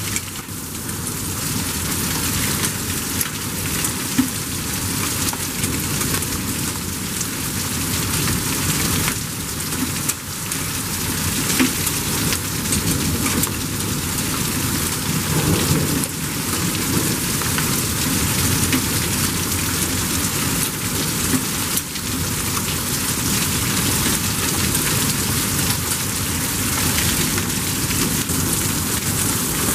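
Torrential rain mixed with small hail pelting concrete and the roofs of parked trailers, a dense steady hiss peppered with sharp ticks of hailstones, during a severe thunderstorm.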